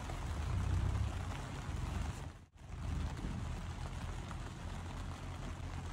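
Heavy rain on a tent's flysheet, heard from inside the tent: a steady hiss with a deep rumble underneath. The sound drops out for a moment about two and a half seconds in.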